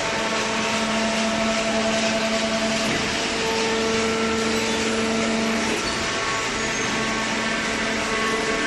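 Hydraulic baler machine running: a steady mechanical noise with a droning hum whose pitch shifts about three seconds in and again near six seconds.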